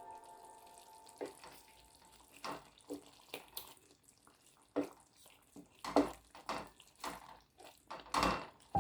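Quiet kitchen handling sounds: about a dozen short knocks, clinks and splashes of pots, utensils and water at uneven intervals.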